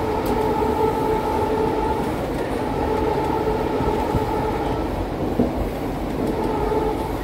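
Twin ALCo WDG-3A diesel locomotives, 16-cylinder ALCo 251 engines, running under power as the train rolls along, heard from the train over the rumble of the wheels on the rails. A droning tone rides on top, dropping out and returning twice.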